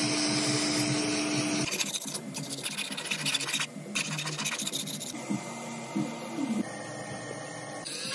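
A jeweller's gas torch hissing steadily on a gold bracelet, then, about two seconds in, fast strokes of a hand file rasping along the gold bracelet's edge against a wooden bench pin. For the last few seconds the filing stops and quieter tool work follows, with a faint steady tone and scattered clicks.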